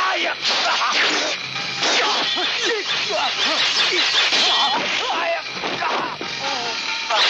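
Sound effects of a broadsword fight: swishing blade swings and a quick run of sharp whacks and hits, mixed with a man's shouts and grunts.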